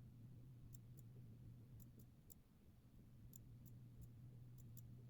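Faint, irregular computer mouse clicks, about a dozen short ticks, over a low steady hum.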